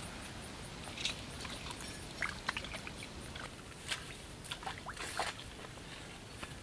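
Irregular water splashes and drips with sharp knocks, as of handling something in shallow water, over a faint high ticking about three times a second that fades out about halfway through.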